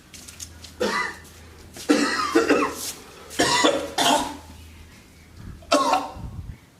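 A man with a feverish chest illness coughing hard, in four harsh bouts about a second or so apart.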